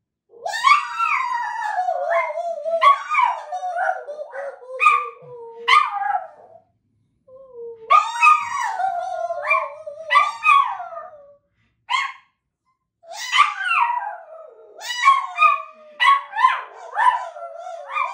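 Small dog howling in long wails that slide down in pitch, broken by short yips, in three bouts with brief pauses about six and a half and eleven seconds in.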